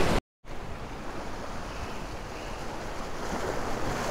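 Surf washing against a granite rock jetty, with wind on the microphone: a steady rushing noise that comes in after a moment of dead silence just at the start.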